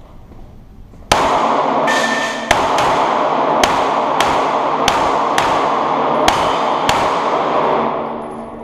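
A string of about eleven pistol shots from a Smith & Wesson M&P, fired roughly every half second, echoing heavily in an indoor range.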